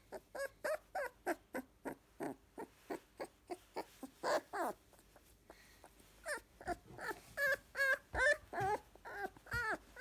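A 22-day-old Labrador Retriever puppy whimpering in a string of short whines. The whines are brief and soft at first, pause about halfway, then turn louder and longer, rising and falling in pitch, over the last few seconds.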